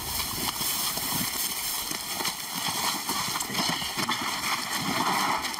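Footsteps and rustling through dry grass, with irregular knocks and scrapes, as several people carry a sedated lion on a tarp and shift it into a cage; faint voices now and then.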